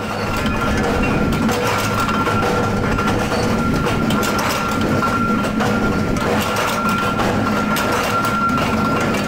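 Forging press in a nut and bolt workshop running steadily: a continuous mechanical din with a dense metallic clatter and a thin steady whine running through it.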